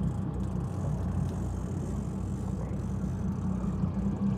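Boat engine running steadily, a low hum with no break.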